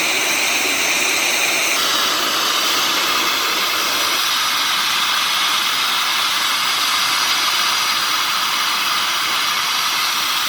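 Boiler blowdown on a Doty steam boiler: steam and hot water blasting out of the blowdown valve in a steady, loud hiss, its tone shifting slightly about two seconds in.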